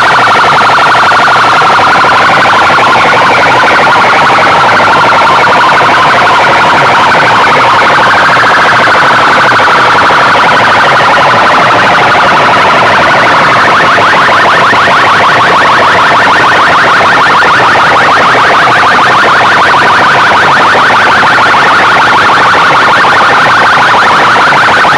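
Loud, distorted electronic siren-like tone, held continuously, its pitch slowly wavering up and down with a rapid buzzing pulse.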